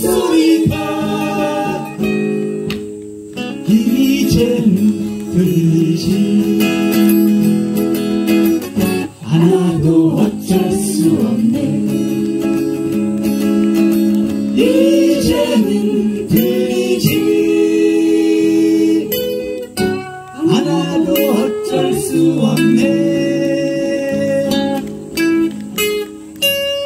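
Acoustic guitar playing with a voice singing over it: a song performed live.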